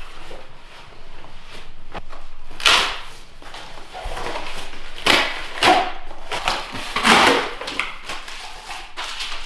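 Vinyl plank flooring and its packaging being handled: several short scraping, rustling swishes with quieter rubbing between.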